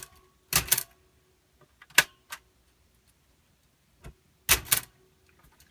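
We R Memory Keepers Typecast typewriter clacking: a handful of separate sharp mechanical strikes at an irregular pace, some in quick pairs, with short silences between them.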